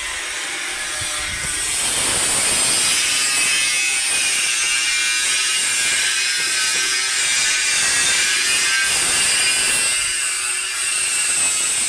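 Steady harsh rasping of tool work, growing louder about a second and a half in and easing off near the end.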